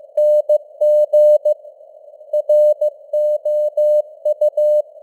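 Morse code sent as a single keyed tone at 15 words per minute, short dots and longer dashes, over faint simulated radio hiss. There is a word gap of about three quarters of a second in the middle.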